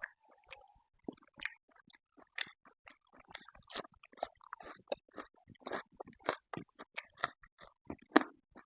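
A person chewing pork, a rapid irregular run of short wet clicks and bites, about two to three a second, with one louder bite near the end.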